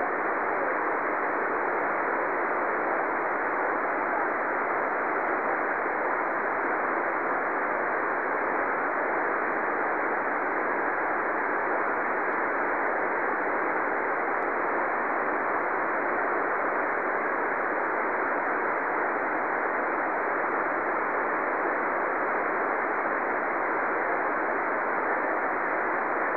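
A shortwave receiver on the 40 m amateur band gives a steady hiss of band noise in single-sideband audio, with no station readable. The station called back has faded out into the noise.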